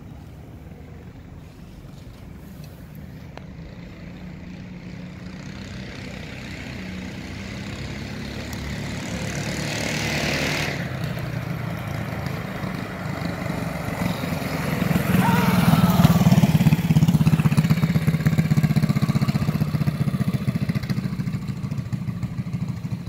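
Predator 212cc single-cylinder four-stroke engine of a CVT mini bike approaching from down the street and growing louder. It revs up until about ten seconds in, then drops off sharply. The engine swells again and its pitch falls as it passes close by around sixteen seconds in, then it runs on steadily at low speed.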